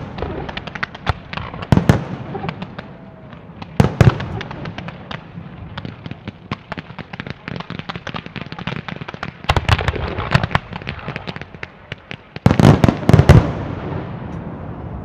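Fireworks display: a string of sharp bangs and crackling from launches and shell bursts, with heavier clusters of reports about two and four seconds in and around ten seconds, and the loudest rapid volley about thirteen seconds in.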